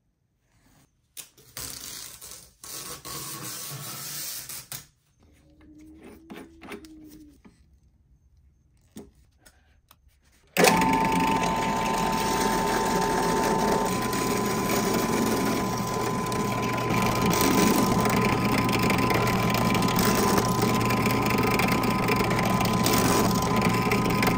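Benchtop drill press starting suddenly about ten seconds in and running steadily with a hum and a whine while its twist bit drills through an epoxy-encased skateboard deck. Before it there are only quieter, broken handling noises.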